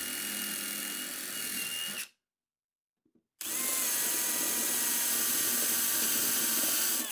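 DeWalt cordless drill boring through aluminum plate, running steadily and stopping abruptly about two seconds in. After a second or so of silence a second run starts, spinning up, then runs steadily until it cuts off abruptly near the end.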